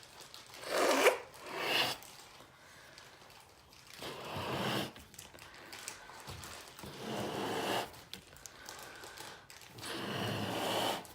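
Someone blowing up a balloon by mouth: breathy puffs of air, each under a second long, with a pause of a few seconds between breaths.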